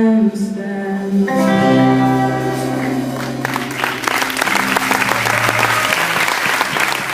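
A live band's song ends: a held sung note finishes, then the band holds a final chord over a low bass note. Audience applause breaks out about halfway through and builds as the chord dies away.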